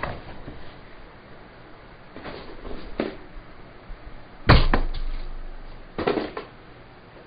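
Handling noises on a wooden workbench: a few knocks and clatters as objects are picked up and put down. The loudest is a single thud about four and a half seconds in, as a plastic tub is set down on the bench, with smaller clacks of small wooden blocks being handled.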